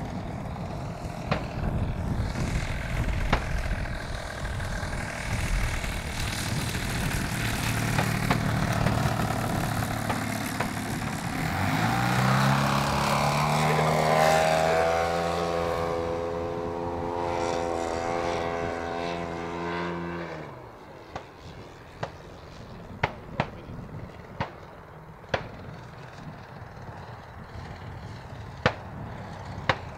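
Engine and propeller of a 50% scale Clipped Wing Cub model plane, heard through a wind-blown rumble at first. About a third of the way in, the engine note rises in pitch and becomes clear and loud as the plane makes a low pass. About two-thirds in it drops away sharply, leaving a faint drone broken by a few sharp clicks.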